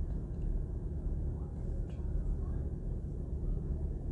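Steady low background rumble with no speech, and a faint tick about two seconds in.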